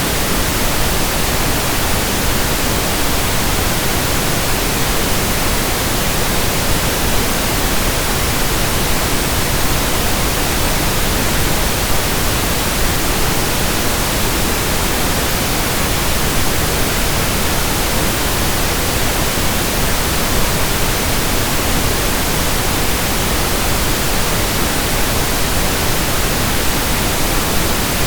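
Steady pink noise: an even, unchanging hiss that fills low and high pitches alike.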